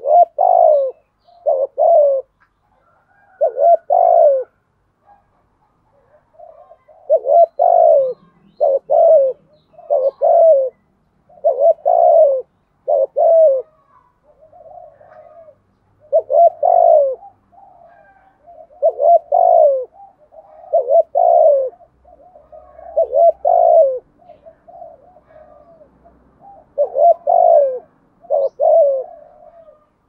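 Spotted dove cooing: repeated phrases of two or three low, throaty coos, with softer coos between the louder phrases in the second half.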